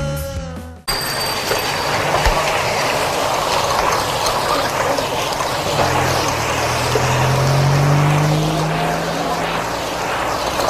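Road traffic: a steady rush of passing cars, with one engine climbing in pitch a little past the middle. The last of the credits music dies away within the first second.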